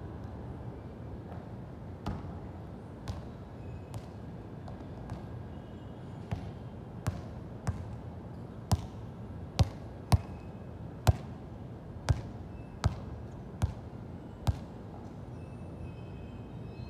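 A series of sharp thuds, about one a second, growing louder partway through and stopping a couple of seconds before the end.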